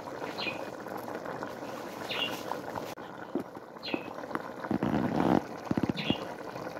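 A pot of tomato stew with green bananas bubbling on the fire, with irregular pops from bursting bubbles that thicken a little past the middle. A short, high, falling chirp repeats about every two seconds over it.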